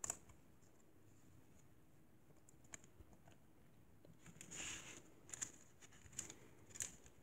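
Faint handling of baseball cards and foil card packs on a tabletop: scattered light clicks and taps, with a short crinkle of wrapper a little past halfway.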